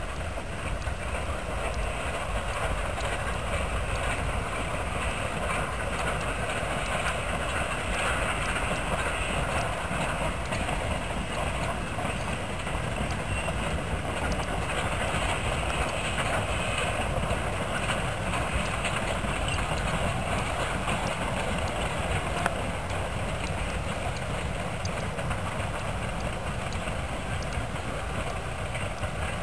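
Narrow-gauge steam train running past: the Rio Grande K-36 2-8-2 locomotive 484 working steadily, then its passenger coaches rolling by with faint wheel clicks on the rail.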